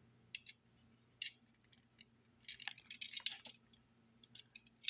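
Faint scattered clicks and light handling noises of a small die-cast model car being turned over in the fingers, busiest in the middle, over a faint steady low hum.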